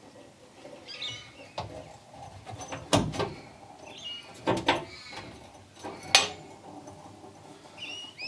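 A car's glove box lid with a newly fitted lockable latch being shut and opened: about five sharp clicks and knocks a second or so apart, the loudest about three seconds in. Birds chirp briefly between them.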